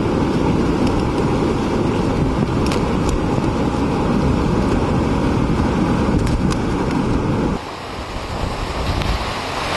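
Steady, loud roar of hurricane-force wind and driving rain buffeting the microphone, with a few sharp ticks. A little past seven seconds in it drops abruptly in level and loses much of its low rumble.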